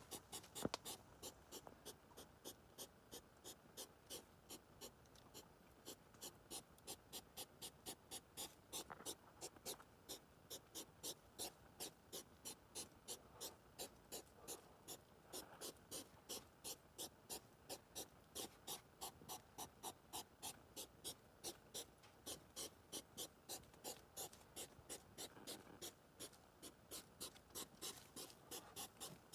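Hedgehogs huffing in a fast, even rhythm of short puffs, about three to four a second, the courtship noise of hedgehogs in mating season. Faint.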